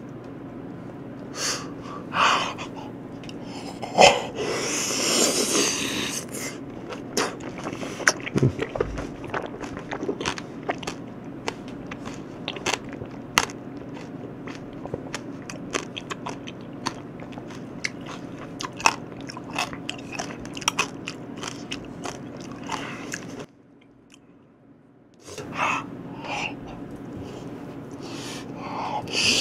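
Close-up eating sounds of black grapes being bitten and chewed, with many small wet pops and clicks. A brief near-silent pause about 23 seconds in.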